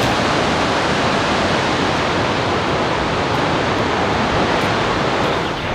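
Gullfoss waterfall rushing, a steady, even wash of loud water noise.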